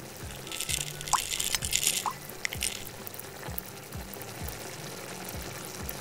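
Tapioca pearls dropping into a small pan of water: a couple of seconds of splashing with two sharp drip-like plops, then a quieter steady sound of water, over background music with a soft beat.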